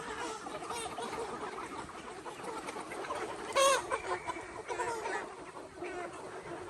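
A flock of chickens clucking, many calls overlapping, with one louder squawk about three and a half seconds in.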